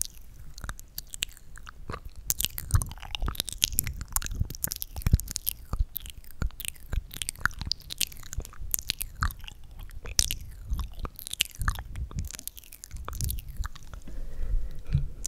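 ASMR mouth sounds: rapid, irregular wet clicks and smacks of the lips and tongue.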